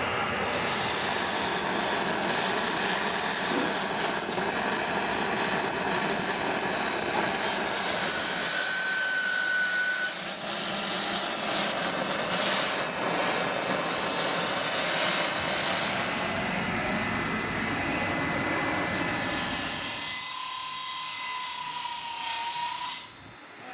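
Steady, loud machinery noise, its character changing abruptly a few times.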